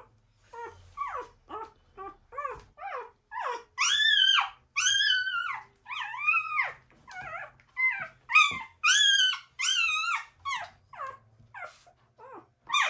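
Newborn pointer puppy crying while being handled. It gives a rapid series of high-pitched squeals, short at first, then longer rising-and-falling wails from about four seconds in.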